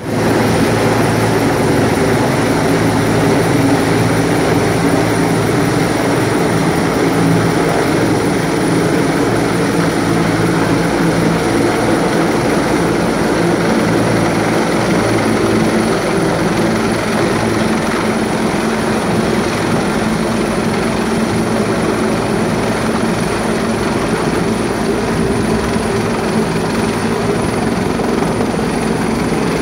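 Rescue helicopter hovering overhead, its rotor and turbine running loud and steady without a break.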